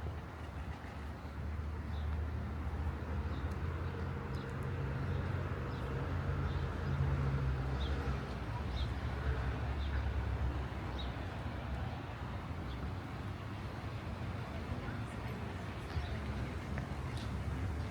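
Outdoor street sound: a low rumble of passing traffic swells for several seconds and then eases, while small birds chirp over it.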